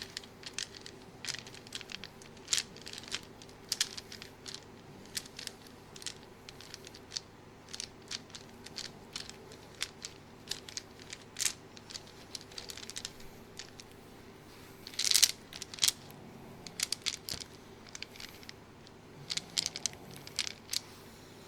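Irregular short crinkles and crackles, like material being handled or crumpled, with a louder burst about fifteen seconds in, over a faint steady hum.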